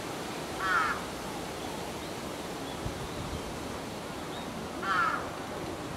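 A crow caws twice, one short call about a second in and another about four seconds later, over a steady outdoor background hiss.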